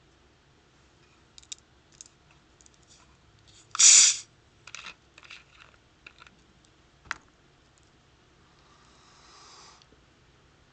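Root beer container being opened: light clicks and taps of handling, then a short, loud fizzing hiss of escaping carbonation about four seconds in. More scattered clicks follow, with a sharp click about seven seconds in and a soft, longer hiss near the end.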